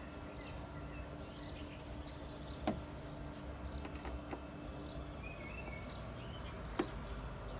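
A small bird chirping roughly once a second over a low outdoor background, with two sharp clicks about four seconds apart from hand work on the bonnet protector's clip screws.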